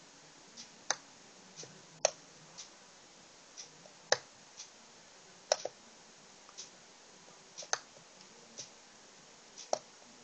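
Sharp clicks of a computer pointer's button, about one or two a second at an uneven pace, some in quick pairs, as on-screen colour sliders are set.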